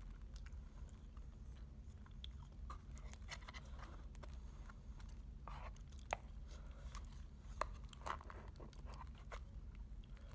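A person chewing and biting battered fried food close to the microphone, with soft crunches and a few sharp clicks scattered through, over a low steady hum.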